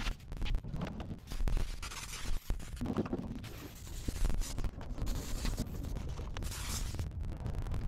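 Hand pump sprayer spraying rust converter onto a bare, rusty steel deck in several short hissing sprays, with scrapes on the deck and a low rumble underneath.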